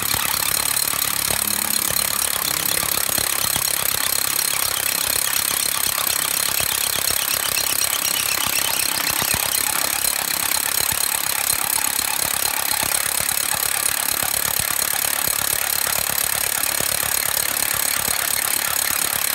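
A large rotary hammer drives a 1.5-inch masonry bit into solid rock, several inches deep into the hole, with a steady, rapid, continuous hammering.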